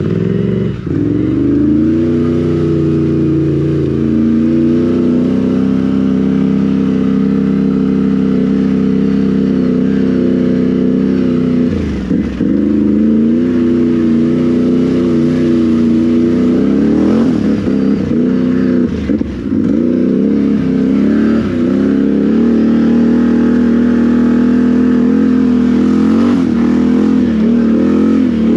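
Can-Am Renegade XMR 1000 ATV's V-twin engine running through RJWC dual aftermarket exhausts under a Monster Tune while being ridden. The engine climbs in pitch in the first few seconds, then holds a steady note that sags and recovers briefly about twelve seconds in and several times in the second half as the throttle is eased and reapplied.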